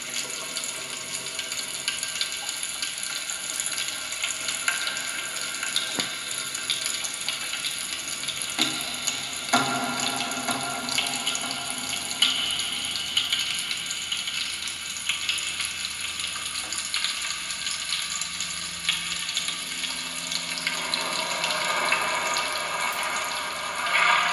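Experimental atmospheric sound piece made with popping candy, a straw and kitchen utensils: a dense, water-like crackle and fizz with scattered clicks, growing louder near the end.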